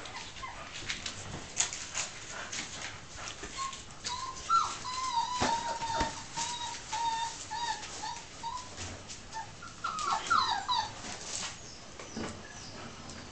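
Nova Scotia Duck Tolling Retrievers whimpering: a run of short, high whines starting about four seconds in, and a burst of rising and falling whines near the end, over scattered clicks and scuffling.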